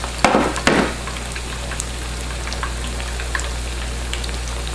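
Breaded chicken cutlet shallow-frying in a skillet of hot oil: a steady sizzle with scattered crackles and pops. Two short, louder bursts come in the first second.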